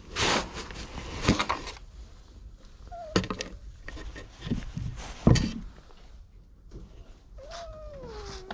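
Rustling and handling noise up close for the first two seconds, then a few sharp knocks on the plywood board. A short cat call comes about three seconds in, and a drawn-out meow that falls in pitch comes near the end.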